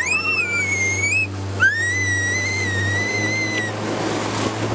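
A young child's two long, high-pitched squeals of excitement as the speedboat speeds off, the second starting about a second and a half in, over the speedboat's steady engine hum.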